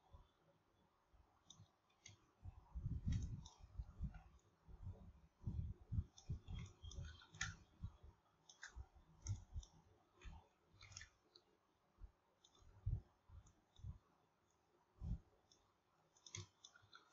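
Faint, irregular clicking of a computer mouse and keyboard, mixed with dull low thumps.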